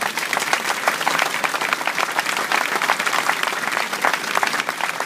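Audience applauding, many people clapping at once in a dense, steady stream of claps.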